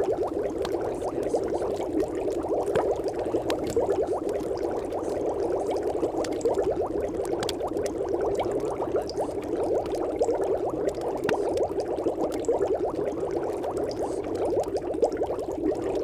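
Steady, muffled bubbling, watery background noise, made of many fine crackles, unchanging throughout.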